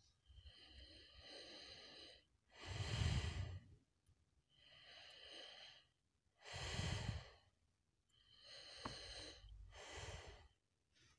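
A person breathing slowly and quietly, about three breaths, each a softer breath in followed by a louder breath out.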